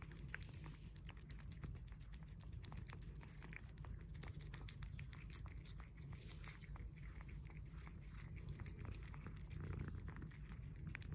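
A cat licking and smacking at a treat in a foil pouch held to its mouth: a faint, steady run of quick small wet clicks from its tongue.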